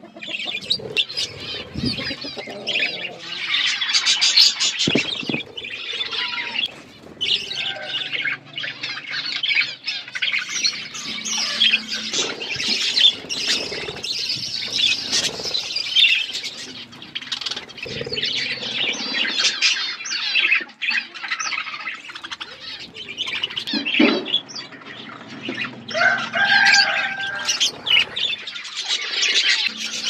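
A flock of budgerigars chattering and warbling nonstop, a dense mix of overlapping chirps and squeaks with scattered short clicks.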